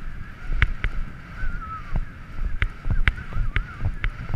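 Horse galloping on grass, heard from the saddle: repeated dull hoofbeat thuds in the gallop's rhythm, with sharp clicks among them and wind buffeting the microphone.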